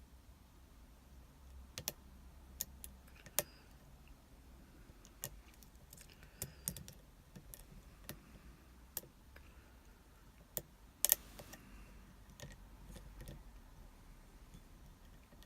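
Lock pick and tension wrench working the pin stack of an Abus 72/40 brass padlock: scattered small, irregular metallic clicks, with a sharper double click about eleven seconds in.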